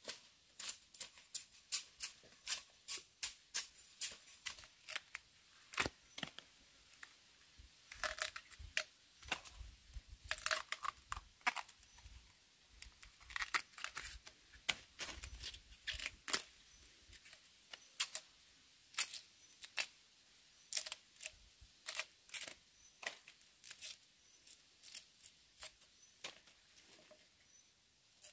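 Irregular series of sharp snaps and clicks, about two or three a second, with a few low thuds in the middle stretch.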